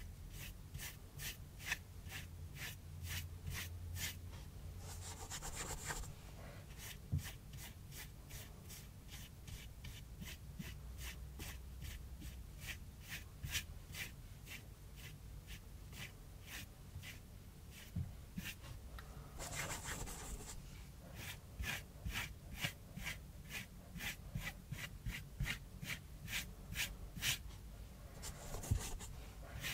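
Flat paintbrush scratching wet gouache across cardboard in quick, repeated strokes, about three a second, with a few longer scrubbing strokes. Near the end the brush stirs paint in a palette dish.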